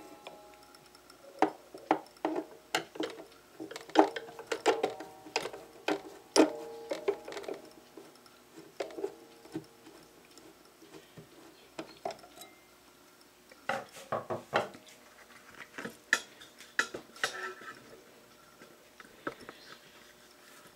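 Screwdriver working out a wood screw that holds a brass clock movement in its wooden case: irregular metal clicks and clinks, each ringing briefly, thick for the first half and sparser later.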